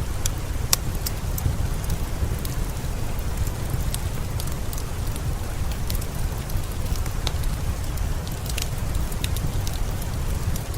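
Steady rain with a deep, even rush, mixed with a wood fire crackling in scattered sharp pops.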